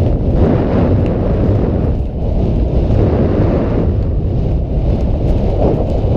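Heavy wind rumble buffeting the microphone of a camera carried by a rider moving at speed on horseback.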